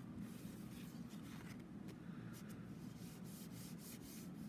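Faint, irregular rubbing and scratching of fingers on paper as a piece of card stock is pressed down onto a handmade card.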